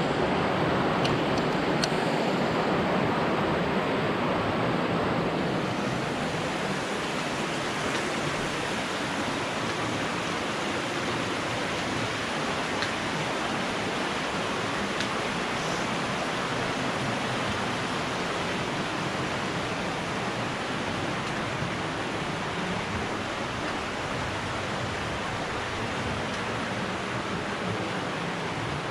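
Steady rush of a waterfall, an even hiss of falling water that eases slightly after the first few seconds.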